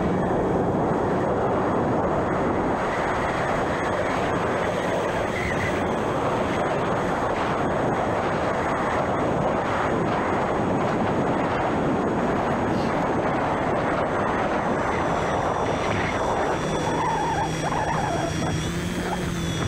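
Homemade electric radio-controlled airplane in flight: its motor and propeller run with a loud, steady rush of air and a faint thin whine that steps up in pitch about a second before the end.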